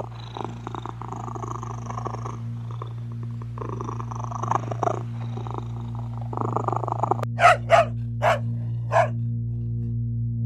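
Domestic cat purring, a rough fluttering sound that swells and fades with each breath. About seven seconds in it cuts off and four short, sharp animal calls follow.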